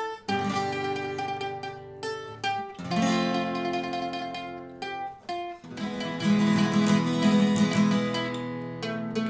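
Acoustic guitar strumming slow held chords, with a mandolin picking single notes over them, in a purely instrumental passage. The chords change every two to three seconds and get louder about six seconds in.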